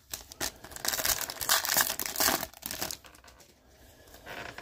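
Foil wrapper of a baseball card pack crinkling and tearing as it is ripped open: a dense run of crackles lasting about three seconds, then quieter rustling.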